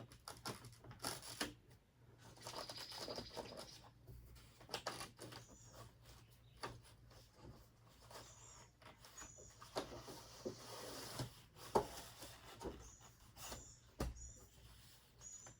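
Scattered knocks, taps and scrapes from working on a stuck window air conditioner unit, with short high squeaks in the second half.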